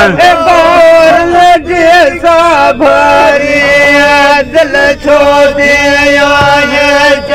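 A group of men chanting together in long held notes, their pitch wavering slightly, with only brief breaks for breath.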